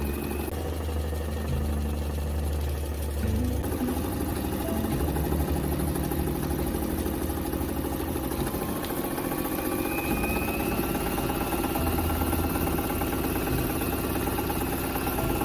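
Brother 661 electric sewing machine, freshly overhauled, running steadily with the fast rhythmic clatter of the needle as it stitches through several layers of denim.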